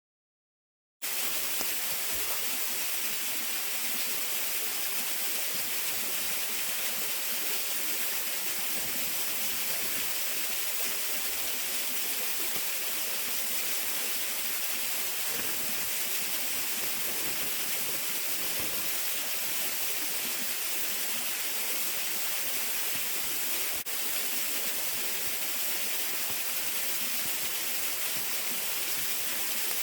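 Waterfall: falling water rushing steadily. It cuts in abruptly about a second in, and there is a single faint click later on.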